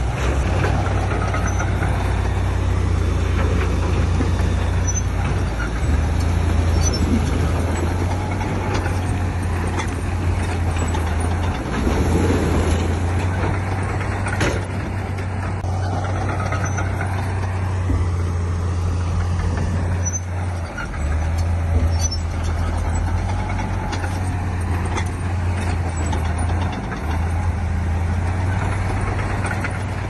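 Bulldozer's diesel engine working steadily, a constant deep drone that dips briefly a few times, with rough mechanical noise over it.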